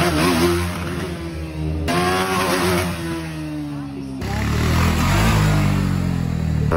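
Sport motorcycle engines revving and running on the road, in three short clips joined by abrupt cuts about two and four seconds in. In the middle clip an engine's pitch falls slowly as it eases off.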